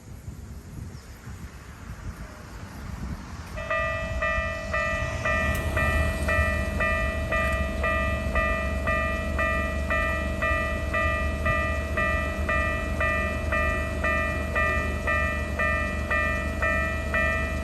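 Japanese level-crossing warning bell of the Keikyu type, slow variant, starting about three and a half seconds in and ringing steadily at about two strikes a second over a low rumble.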